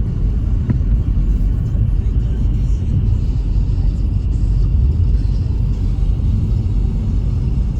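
Steady low rumble of a car driving, heard from inside the cabin: engine and tyre noise on a snowy road.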